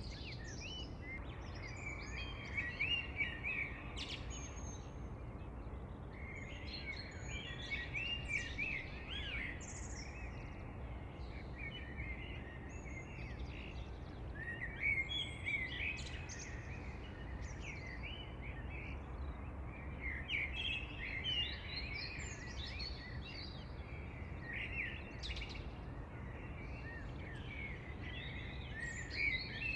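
Several birds singing and chirping, short trills and chirps coming close together and overlapping, over a steady low hiss of outdoor background noise.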